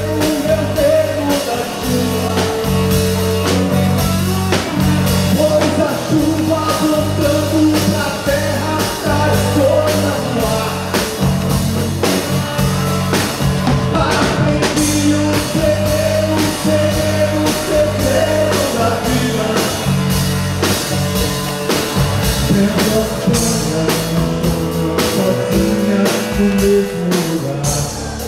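A rock band playing: drum kit, electric bass and guitar, with a melody line over them.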